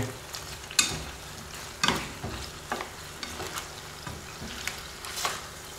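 Chicken wings sizzling in a frying pan as they are turned over with a slotted spatula, with scattered scrapes and knocks of the spatula against the pan.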